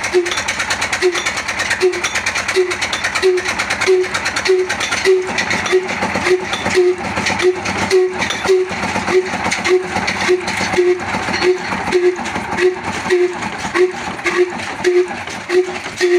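Slow-speed 'Kala' oil (diesel) engine running with a regular, clattering beat that quickens steadily, from about one beat a second to about two a second by the end.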